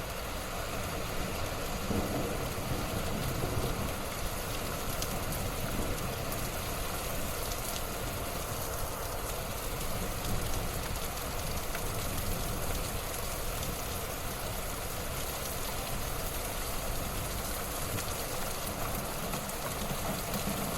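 Light rain falling steadily in a backyard, an even hiss with faint scattered drop ticks, stopping abruptly at the very end.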